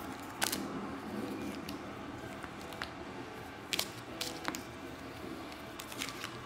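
Handling noise: a few sharp clicks and crinkles as foil booster packs, cards and the handheld camera are moved about, over a faint steady low hum.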